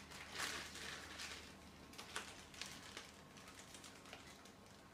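Faint crinkling and rustling of a small plastic bag being opened and handled by hand, loudest in the first second or so and dying down toward the end.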